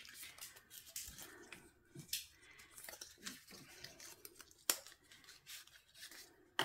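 Faint handling of a small cardboard box and a stack of paper stickers: scattered scrapes, rustles and light clicks as the box is opened and the stickers are slid out, with a couple of sharper ticks.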